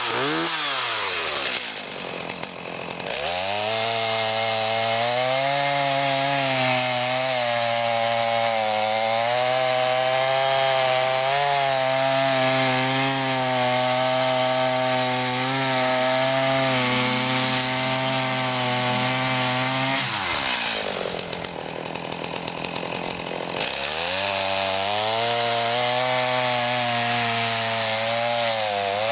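Stihl Farm Boss two-stroke chainsaw cutting through a pine log at full throttle, its pitch wavering under load. It drops to a pulsing idle for a couple of seconds twice, about two seconds in and again about two-thirds through, then revs back up into the wood each time.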